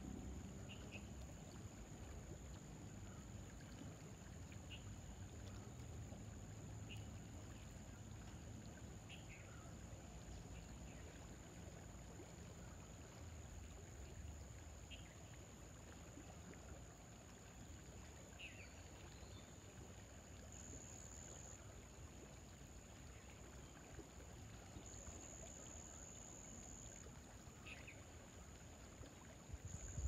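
Faint riverside ambience: a soft low rumble, heaviest in the first ten seconds or so, under a steady high-pitched whine, with short bird chirps scattered throughout.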